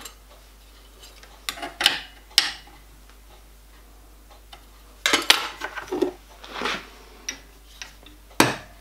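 Scattered metallic clicks and clinks of hand tools being handled at a bench vise, a few about two seconds in and a busier run in the second half. Near the end comes one sharp hammer blow on an aluminium bar held against a small metal bracket clamped in the vise, to bend the bracket.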